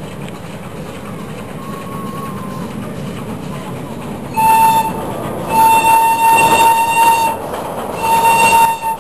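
Park toy train running with a steady low rumble, then sounding its horn three times in a single high tone: a short blast, a long one of nearly two seconds, and a shorter one near the end.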